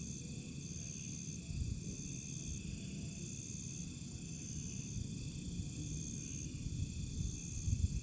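Night insects calling: one insect gives high-pitched trills in regular bursts a little over a second apart, over a steady chorus of other insects.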